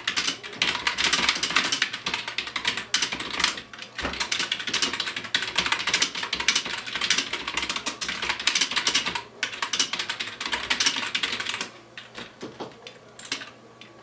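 Fast, continuous typing on a keyboard: a dense run of key clicks with short pauses about four and nine seconds in, thinning out and getting quieter near the end.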